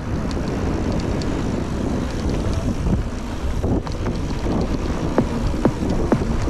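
Wind buffeting the microphone and tyre rumble from a mountain bike riding a trail, a steady rushing noise, with a few sharp clicks and rattles from the bike near the end.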